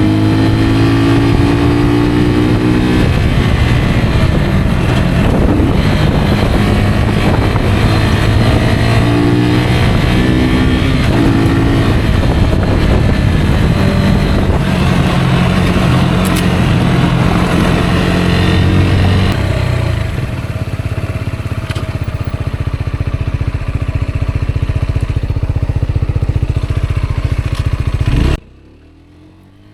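Rieju Aventura 125 motorcycle's 125 cc single-cylinder engine running while riding, its pitch stepping up and down with throttle and gear changes. It settles to a lower, steadier note after about twenty seconds, and the sound cuts off suddenly near the end.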